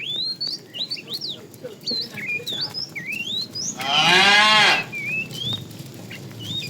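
A cow mooing once, a loud call about a second long that starts nearly four seconds in. Small birds chirp throughout.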